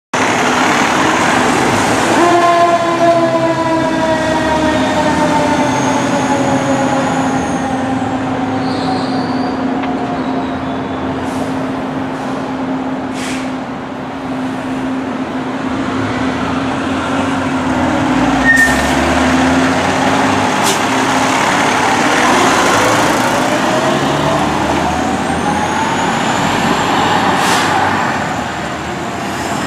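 Fire engine sirens sounding as the engines pull out and drive off, over the engine noise of the trucks. The wail falls slowly in pitch in the first several seconds and rises again near the end.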